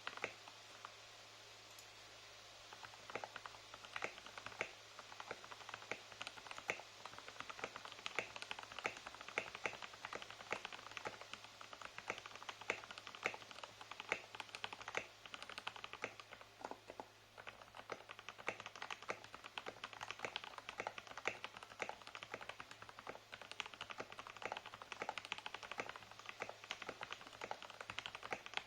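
Typing on a custom 60% mechanical keyboard with lubed Gateron Black KS-3 linear switches, a polycarbonate plate, an acrylic case and OEM-profile keycaps. The keystrokes are sparse at first and become a fast, dense run of clacks after about three seconds.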